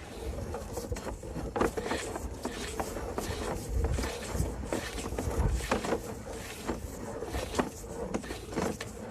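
Sewer inspection camera's push cable being worked through a 4-inch cast iron sewer line: irregular knocking and clicking over a steady hum.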